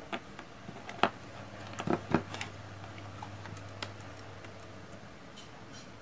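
Light clicks and taps of small electronic parts and tools being handled on a cutting mat, a handful in the first two and a half seconds and a few faint ticks after, over a steady low hum.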